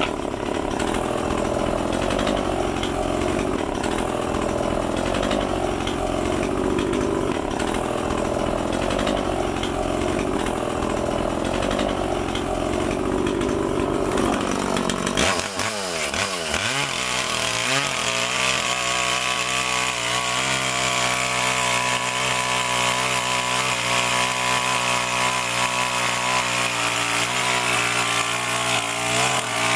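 A chainsaw carving wood. About halfway through the sound changes: the engine rises in pitch over a couple of seconds and then holds a steady high whine.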